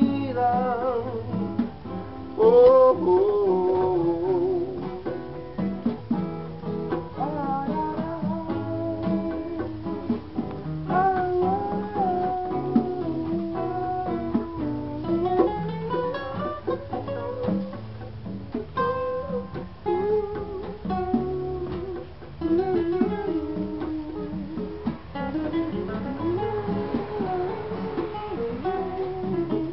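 Guitars and conga drums playing live, an instrumental passage of a song with a gliding melody line over the chords.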